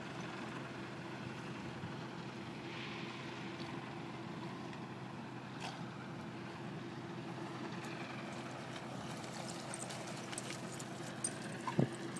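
A steady, distant motor hum with an even constant tone throughout. A few sharp clicks come near the end.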